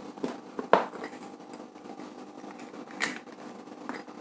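Light bulbs being fitted into plastic lamp holders by hand: light scraping and small clicks of the metal caps in the holders, with two sharper clicks about a second in and near three seconds in, over a faint steady hum.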